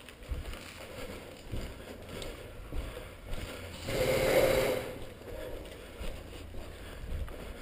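Footsteps and gear rustle of a player moving on foot over concrete, with scattered small knocks and clicks. About four seconds in, a louder scraping rush lasts about a second.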